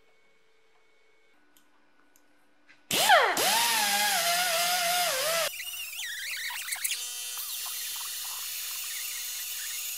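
Small handheld sander with a red abrasive disc grinding rust off the steel of a car's wheel arch and sill seam. It starts about three seconds in with a loud whine that wavers in pitch as the disc is pressed on, then drops to quieter, steady grinding about halfway through.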